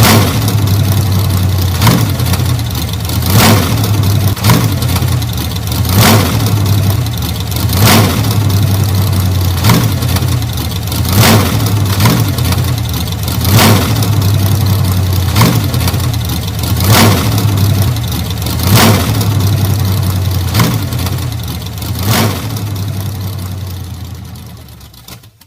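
A 1940 Ford's engine running steadily, with a low hum and a sharper pulse roughly every one and a half to two seconds. It fades out near the end.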